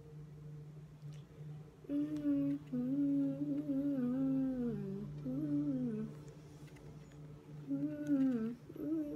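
A woman humming a tune with her lips closed, in two melodic phrases: one starting about two seconds in, another near the end.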